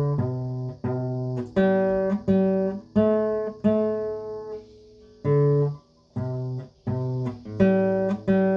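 Acoustic guitar playing a slow single-note melody, one plucked note at a time on open and low-fretted strings, each note ringing until the next. There is a brief pause about halfway through before the phrase goes on.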